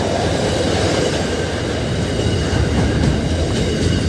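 Freight train's wagons rolling past on the rails: a steady, loud rumble of wheels on track.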